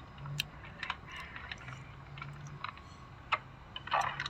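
Faint scattered clicks and light taps, with a sharper click about half a second in and another a little past three seconds, over a low steady hum.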